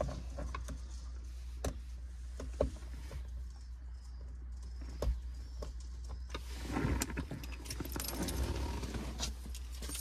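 Small plastic and metal clicks, taps and rattles as a steering-wheel clock spring is handled and fitted onto a 2011 Chevrolet Captiva's steering column. There is more rustling handling noise in the second half.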